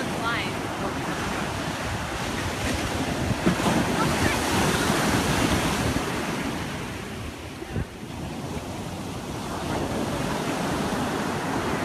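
Ocean surf breaking and washing up the beach, with wind buffeting the microphone. The wash swells louder a few seconds in, eases off past the middle, then builds again near the end.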